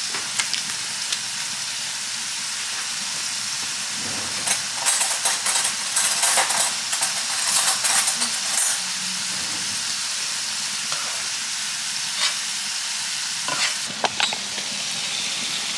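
Ground beef taco meat sizzling steadily in a frying pan, with water and taco seasoning just added. From about four to nine seconds in, a utensil scrapes and clatters against the pan as the meat is stirred, and a couple of sharp knocks come near the end.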